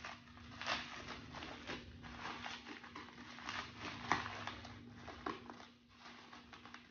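Packaging crinkling and rustling in quick irregular crackles as a tightly wrapped parcel is pulled open by hand, with a sharper crackle about four seconds in. A faint steady hum sits underneath.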